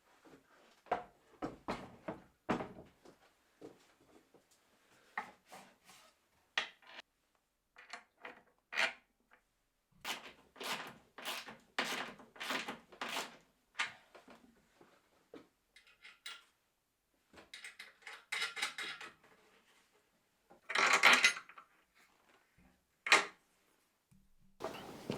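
Scattered knocks, clicks and clatter of tools, hardware and plywood being handled while a mitre saw is bolted onto its plywood base. Near the end comes a louder rattling burst of about a second, then a single sharp knock.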